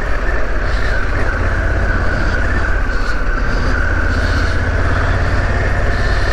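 Harley-Davidson Pan America's 1250 V-twin engine running steadily while the bike is ridden slowly along a gravel and clay track.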